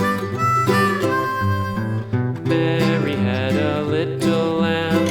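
Country-style instrumental music: a harmonica melody that gives way about two seconds in to plucked acoustic guitar.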